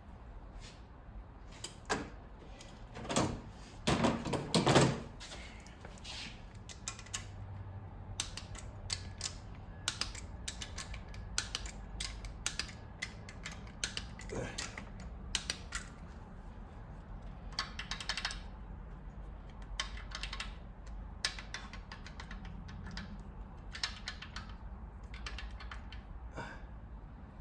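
Hand tools working the rocker arm bolts on a 3.8L V6 cylinder head: scattered metallic clicks and knocks of a wrench and socket, with a denser, louder run of clicks about three to five seconds in.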